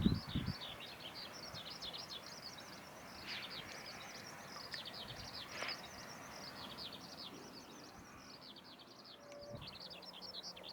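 Small birds chirping in a dense, continuous chatter of rapid high chirps. A low thump right at the start.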